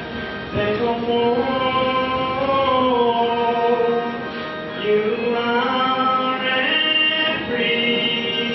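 Voices singing a slow liturgical melody with long held notes.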